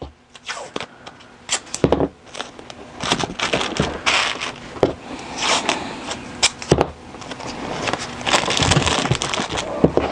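Blue painter's tape being pulled off the roll and torn into strips, with plastic crinkle material crackling under the hands as the strips are pressed down. It comes as a string of irregular rasps and sharp cracks.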